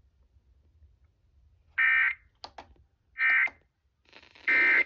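Emergency Alert System end-of-message data bursts from a radio: three short, identical digital bursts a little over a second apart, signalling that the test alert has ended.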